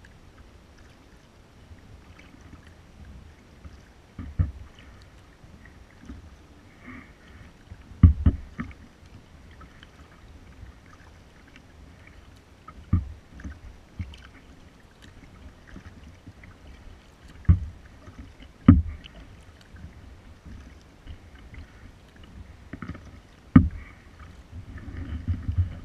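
Kayak being paddled: faint water sounds broken by six sharp knocks a few seconds apart, the loudest about eight seconds in.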